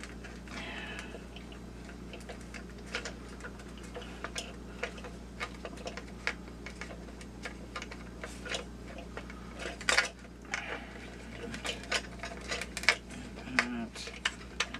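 Irregular light clicks and taps of the plastic housing and glued wires being handled and worked apart, with a sharper click about ten seconds in and a quicker run of clicks near the end.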